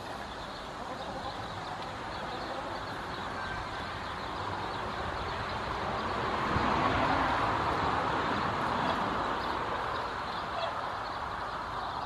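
A steady outdoor rushing noise that swells about six seconds in and slowly eases off again.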